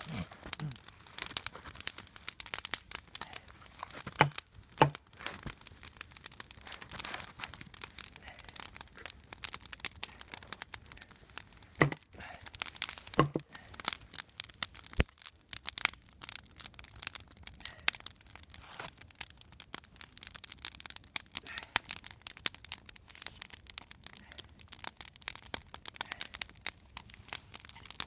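Open wood fire of dry twigs and branches crackling with a steady stream of small sharp pops. A few louder snaps and knocks stand out, around four seconds in and again near twelve seconds.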